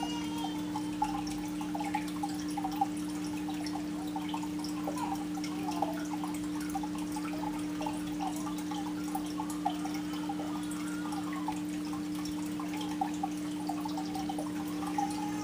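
Aquarium water dripping and bubbling in small irregular pops, over a steady low hum.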